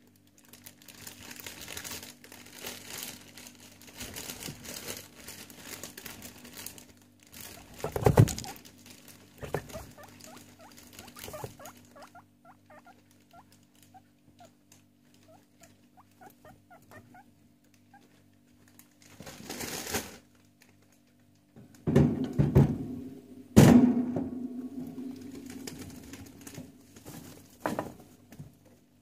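Guinea pigs shuffling about on hay in a wire cage, with intermittent rustling and pattering. There is a loud knock about eight seconds in and two more about three-quarters of the way through, over a steady low hum.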